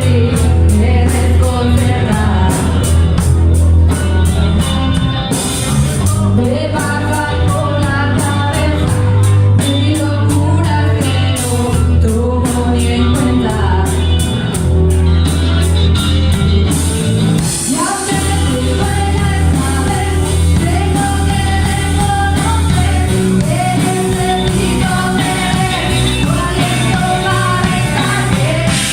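Rock song with a sung vocal over bass, guitar and drums, the high cymbal part changing from a steady ticking beat to a denser wash about two-thirds of the way through.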